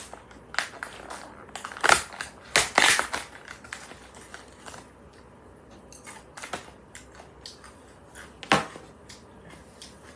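Crunchy chewing of food close to the microphone, in short crackling bites, with a cluster about two to three seconds in and single bites later.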